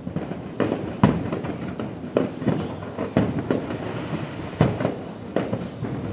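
Fireworks display heard from a distance: an irregular run of bangs and booms, roughly one or two a second, each with a short rumbling echo, over a continuous background rumble.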